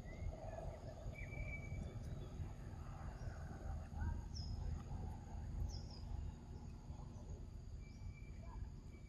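Outdoor ambience with a steady low rumble and a few short, high bird chirps, two of them quick falling notes around the middle.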